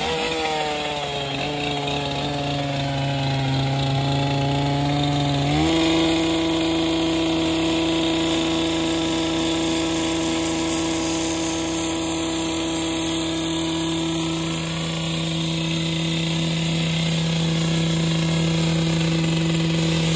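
Two-stroke gas cut-off saw running at high revs, cutting into the concrete of an old septic tank. Its engine note steps up in pitch about five and a half seconds in, then holds steady.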